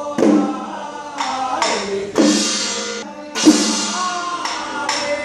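Percussion of a Chinese temple trance ritual: loud strikes about once a second, several trailing a high ringing shimmer, with a group of men's voices chanting and calling between the strikes.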